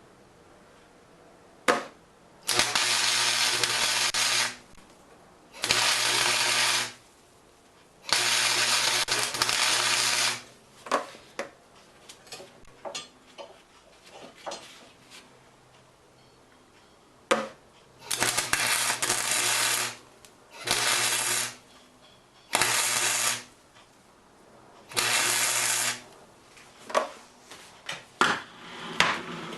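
Electric arc welder running in seven short bursts of one to two seconds each, a steady crackling hiss over a low electrical hum, as short weld beads are laid on a steel handle. Light metallic clicks and taps come between the beads.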